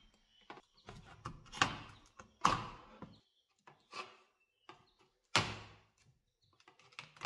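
Old fabric speaker grille cloth being pulled and torn away from the glued wooden baffle frame, with a blade scraping it loose. It comes in several short rasping rips separated by pauses.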